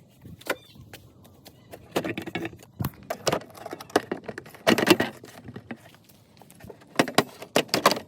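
Irregular clicks, clinks and short rattles of a screwdriver and small screws being worked out of a scooter's plastic front panel, with quiet gaps between the bursts.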